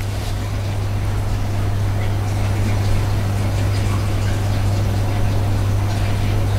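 A steady low hum at one deep pitch, unchanging, with a faint hiss over it.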